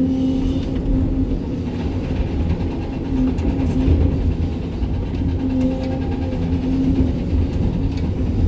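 Sany 305 excavator's diesel engine running steadily under working load, its hum rising and falling slightly as the hydraulics work, with a few faint clicks and knocks of stone.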